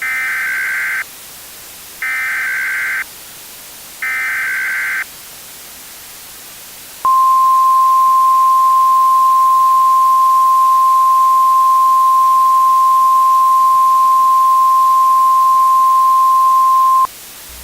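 Emergency Alert System SAME header: three one-second bursts of digital data tones a second apart, then, about two seconds later, the steady 1050 Hz NOAA Weather Radio alert tone held for ten seconds, over a constant radio hiss. The sequence marks the start of a new alert message, here a high wind watch.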